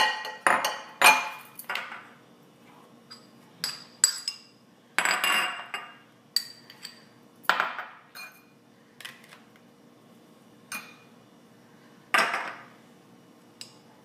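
Spoon clinking and scraping against a bowl while mixing spices into boiled chana dal, in irregular strokes with short pauses; the longest scrapes come about five seconds in and again near twelve seconds.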